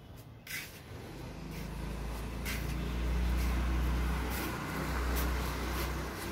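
Low engine rumble of a road vehicle going by, building about a second in, loudest midway and easing off toward the end, with a few faint clicks over it.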